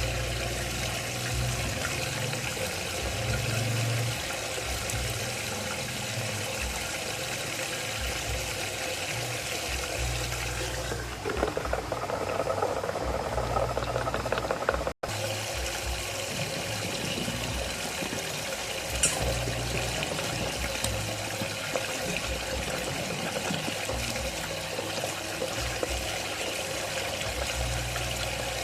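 A water vortex in a tank, swirling and gurgling steadily. It sounds busier and more agitated for a few seconds about eleven seconds in, then cuts out for an instant around fifteen seconds.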